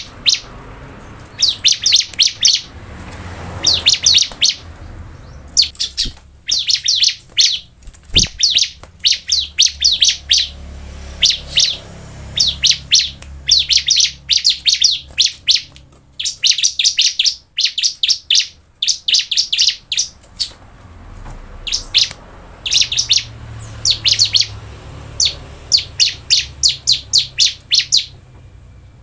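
Bar-winged prinia (ciblek) singing: repeated bursts of rapid, high, sharp notes, each burst lasting under a second, with short pauses between them.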